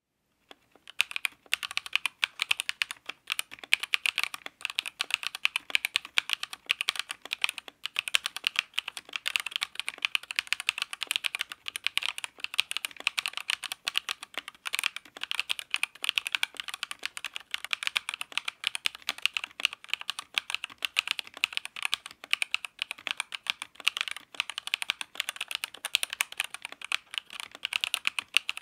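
Redragon K631 PRO SE mechanical keyboard being typed on fast and continuously, a dense run of irregular key clicks that begins about a second in.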